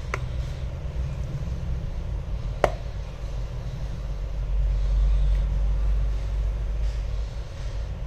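Steady low rumble, with two sharp clicks of the replacement iPhone X display being pressed into its frame: a faint one at the start and a louder one about two and a half seconds in.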